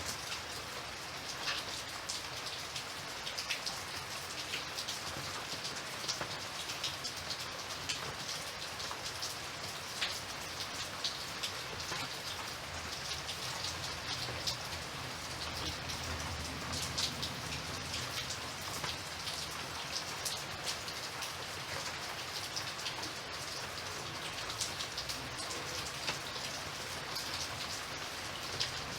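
Steady rain falling on a surface, a constant hiss with many scattered drips and patters.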